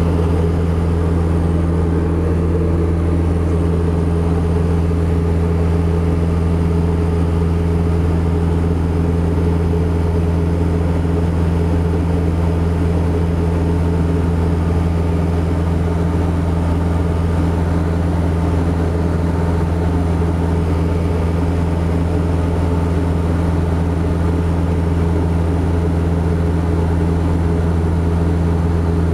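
Steady, loud drone of a light aircraft's engine and propeller, heard inside the cabin in cruise: a deep, unchanging hum with a fainter higher tone over it.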